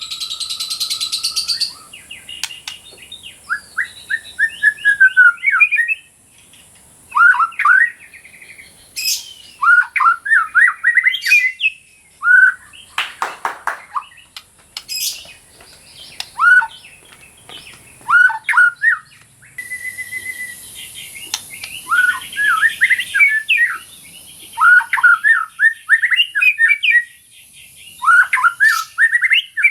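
White-rumped shama (murai batu) singing loud, rapid phrases of short, rising whistled notes, with brief pauses between phrases. A steady high-pitched hiss runs behind the song.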